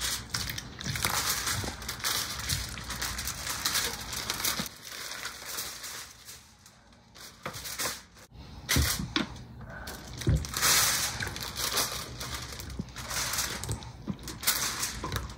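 Parchment paper crinkling and rustling under a rack of raw pork ribs as hands move, flip and rub the slab, with a couple of dull thumps about two-thirds of the way in as the ribs are set down on the paper.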